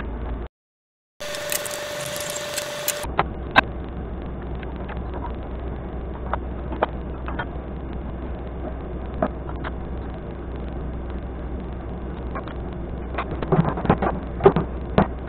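Steady low hum and hiss with scattered clicks and knocks of parts and tools being handled at a stopped table saw, and a run of louder knocks near the end. Early on the sound drops out briefly, then about two seconds of brighter hiss with a steady tone.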